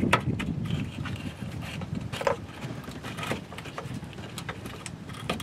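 Hands working a rubber hose and its rubber mount onto a rusted metal bracket: scattered small clicks and rubbing, over a low steady background noise.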